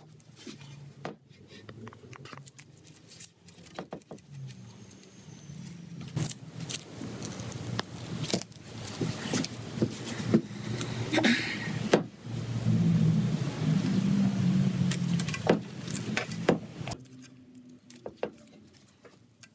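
Sharp clicks and knocks of a carbon bike frame and tools being handled on a wooden workbench, over a low engine-like hum. The hum swells about two-thirds of the way through, then stops, leaving only a few quiet handling clicks.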